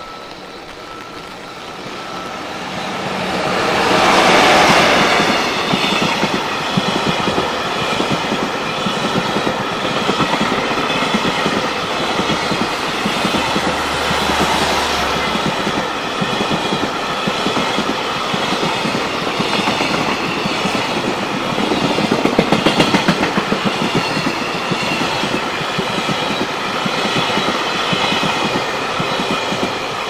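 Electric-hauled container freight train passing close by: the locomotive is loudest about four seconds in, then a long run of container wagons clatters over the rail joints with a steady rhythm, and the sound falls away near the end.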